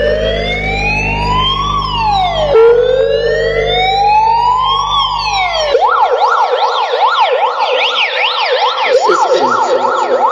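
Electronic siren sound played loud through a car audio system. It starts as two slow rising-and-falling wails over a low bass drone, then about six seconds in switches to a fast yelp.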